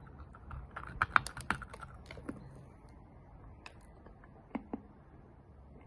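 Crunching of a hard, brittle 'lava stone' being bitten and chewed: a quick run of crisp clicks about a second in, then two sharp clicks near the end.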